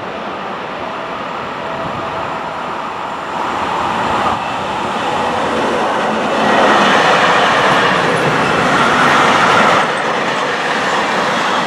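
Train passing on the line: the rolling noise of its wheels on the rails builds as it approaches, is loudest for about three seconds, then falls off sharply near ten seconds in.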